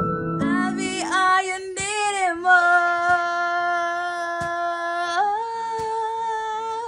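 A woman singing wordless long held notes, with a few wavering turns early on, then a step up in pitch about five seconds in. A soft keyboard tune dies away in the first second.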